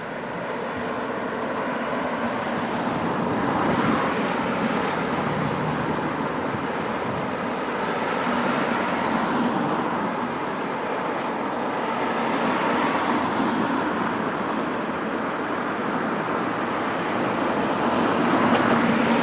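Electric train running into the station: a steady rush of wheels and motors that slowly grows louder and swells, with the first wheel clicks over rail joints near the end.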